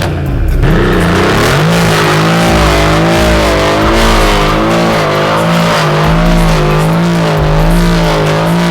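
Mercedes-AMG C63 S's twin-turbo 4.0-litre V8 running through a custom valved rear exhaust section. Its revs shift at first, then are held steady from about a second and a half in.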